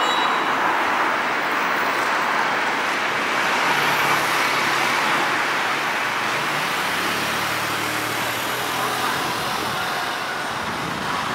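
Steady street traffic noise, with a vehicle engine's low hum coming through for a few seconds in the middle.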